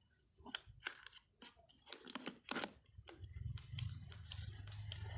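Scattered clicks and knocks of a small angle grinder and its pad being handled, then about three seconds in the grinder's motor runs with a steady low hum.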